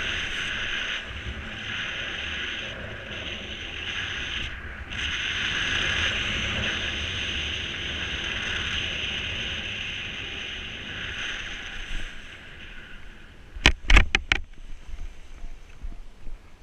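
Steady rush of air over the microphone during paraglider flight, fading out about thirteen seconds in; a quick run of four sharp knocks follows soon after.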